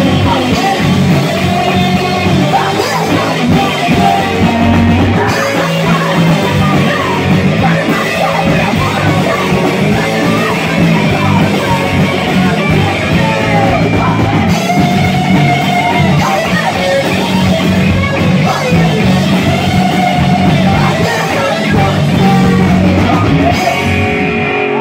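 Punk rock band playing live: electric guitars and drums with a woman singing lead vocals. The song cuts off near the end.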